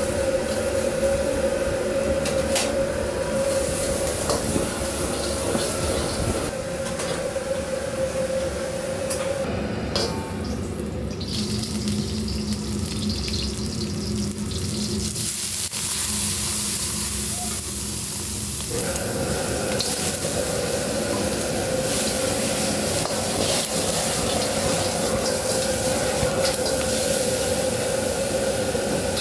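Commercial wok-station noise: a high-output gas wok burner running hard, with oil and food sizzling in a carbon-steel wok. The burner's steady hum drops away for several seconds in the middle, then returns.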